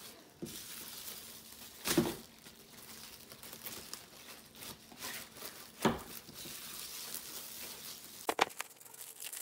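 Plastic cling film crinkling and stretching as it is pulled off the roll and wrapped around a piece of beef. Three short knocks come a few seconds apart.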